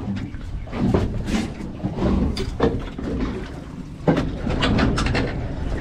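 Scattered knocks and clunks of people and gear moving about a small fishing boat over a low rumble, during the fight to net a longtail tuna beside the hull.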